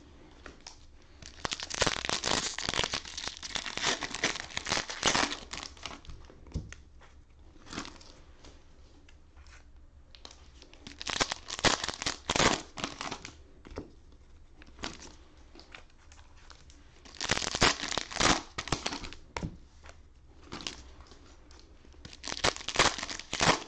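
Cellophane trading-card pack wrappers being torn open and crinkled by hand, in four bouts of rustling separated by short quieter pauses.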